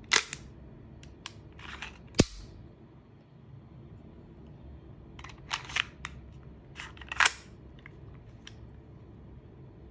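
An RWA Nighthawk Custom War Hawk airsoft M1911 being handled: a series of sharp clicks and clacks as the slide goes forward from lock-back and the magazine is pulled out and put back. There are two clusters of clicks, with the loudest single clack about two seconds in.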